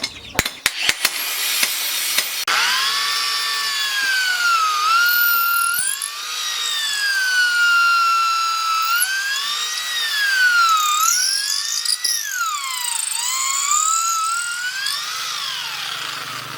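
A few sharp knocks, then a handheld electric power tool spins up with a rising whine and runs loud, its pitch sagging and recovering several times as it is pressed into the work and eased off.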